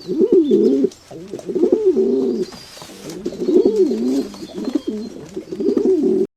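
A bird's low, warbling calls, repeated in several phrases of about a second each with short pauses, cutting off suddenly just before the end.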